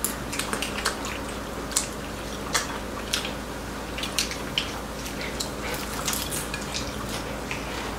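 Metal chopsticks clicking irregularly against plates and bowls, with chewing, as several people pick at cabbage pancake and side dishes. A few sharper clicks come about two to three seconds in.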